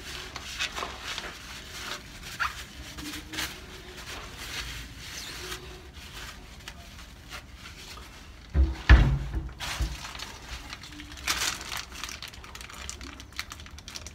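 Soft rustling and handling noises as gloved hands wipe a cut PVC pipe with tissue, with scattered small clicks. A single dull, deep thump about nine seconds in is the loudest sound.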